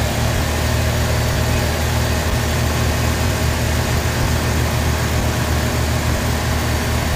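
Chevy S10 pickup engine idling steadily, heard close up under the open hood.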